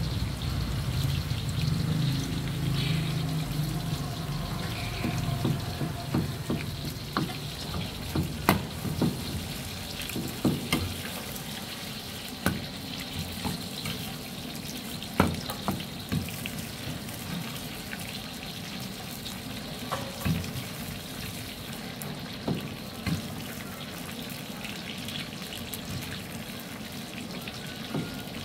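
Battered meat pieces deep-frying in a wok of hot oil, a steady sizzle. Now and then there is a sharp metallic knock as the ladle stirring the pieces strikes the wok.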